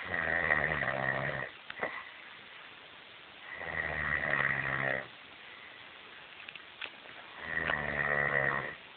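Snoring: three long, rattling snores, evenly spaced about four seconds apart.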